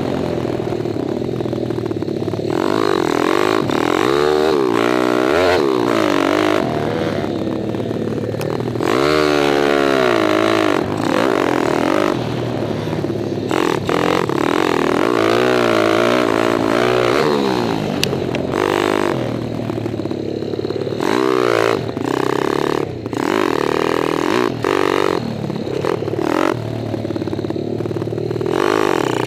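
Kawasaki KLX dirt bike's stroked 177 cc single-cylinder four-stroke engine revving hard under riding, its pitch climbing and falling again and again as the throttle is opened and closed through the gears.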